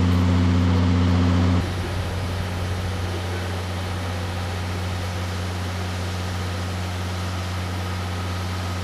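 Steady low electrical hum of a stationary JNR limited-express electric train's onboard equipment idling at the platform. The hum drops in level about a second and a half in and carries on more faintly under an even hiss.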